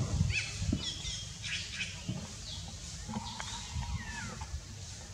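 Wild birds calling in the trees: many short high chirps and a few falling whistles, over a steady low rumble that is loudest in the first second.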